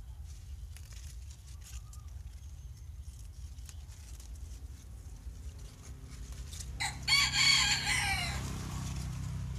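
A rooster crows once about seven seconds in: a loud call of under two seconds that falls in pitch at its end. Before it come faint rustles and snaps of bok choy leaves being picked by hand.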